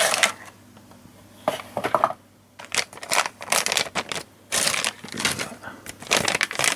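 A small cardboard retail box handled and opened, then a metallised anti-static bag crinkling and rustling in the hands. The crinkles come in irregular bursts, sparse at first and denser from about a third of the way in.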